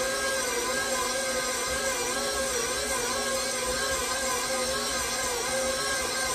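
KitchenAid Professional 5 Plus stand mixer running at low speed (setting 2), its dough hook kneading rye bread dough in the final minute of kneading as caraway seeds are worked in. A steady motor hum, its pitch wavering slightly and regularly.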